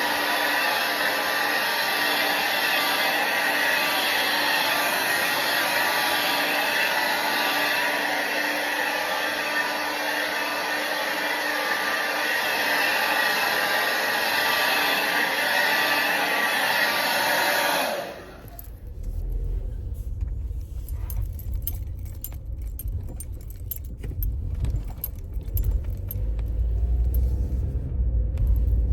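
Hand-held hair dryer blowing steadily, then cutting off abruptly about two-thirds of the way through. After it, a low rumble with scattered clicks and rattles.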